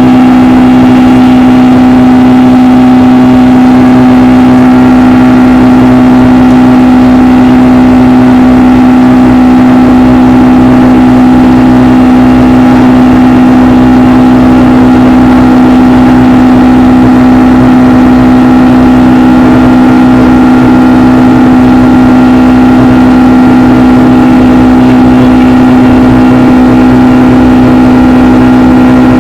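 Boeing 757-200's twin turbofan engines running steadily, heard as a loud, even cabin drone with a strong constant hum and a low rumble underneath.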